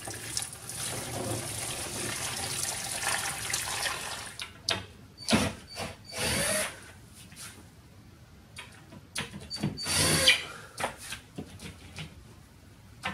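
Water running from a kitchen tap into a plastic bucket for the first few seconds, then a cordless drill-driver run in a few short bursts at the base cabinet's kickboard, with its motor whining, and some knocks between.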